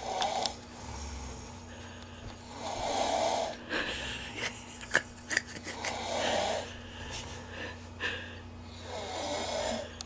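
A man snoring in his sleep, one long snore about every three seconds, with a few sharp clicks between the snores.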